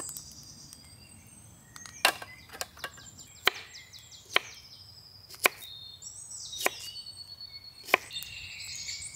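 Knife chopping onion and garlic: about eight sharp, separate strikes at an unhurried, uneven pace, starting about two seconds in, with birds chirping behind.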